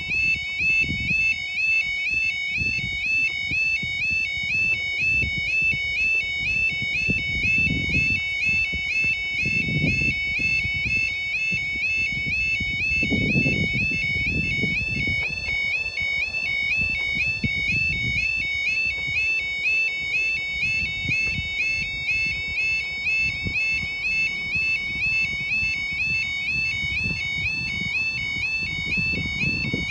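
Level crossing warning alarm sounding continuously: an electronic warbling tone that rises and falls about four times a second, the signal that a train is approaching.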